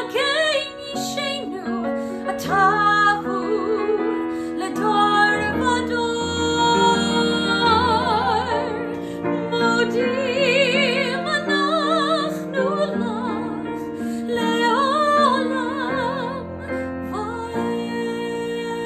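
A female cantor sings a Hebrew liturgical melody with a wide vibrato on sustained notes, accompanied by piano.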